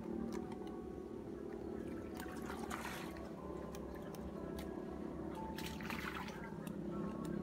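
Water splashing in a weedy pond in two short bursts, about two and a half and six seconds in, as a fish thrashes at the surface. A steady low hum runs underneath.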